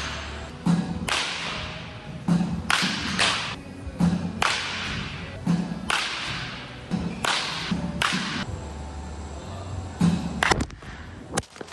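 Repeated sharp cracks of a bat striking pitching-machine baseballs, one every second or two, each trailed by a brief ringing echo in the large hall, mixed with duller thumps.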